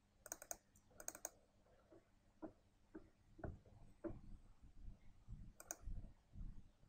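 Quiet clicking of a computer mouse: small clusters of sharp clicks near the start and again near the end, with a few soft low knocks in between.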